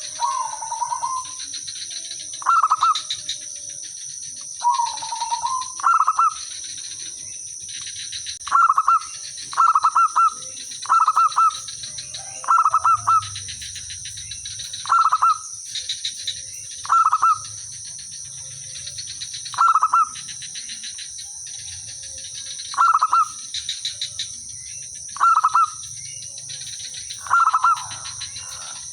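Zebra doves cooing: short, bright phrases of quick stuttering notes, repeated every second or two, with some phrases following close on one another as birds answer each other. A steady high-pitched whine runs underneath.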